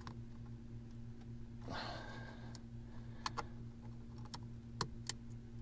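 Plastic wiring connector and harness being handled and pushed into a throttle-controller module: a soft rustle about two seconds in, then a few sharp plastic clicks in the second half, over a steady low hum.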